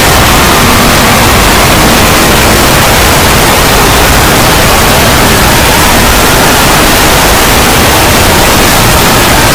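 Extremely loud, heavily distorted wall of noise at a steady, near-maximum level, with no clear tone, rhythm or words standing out.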